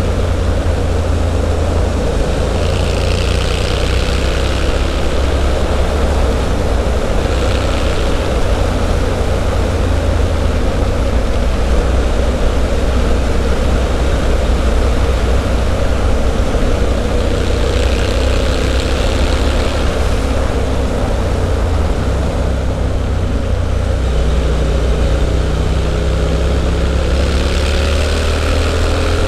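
Triumph Street Scrambler 900's parallel-twin engine through a Zard aftermarket exhaust, running hard on the open road, its pitch rising and falling as the throttle is rolled on and off.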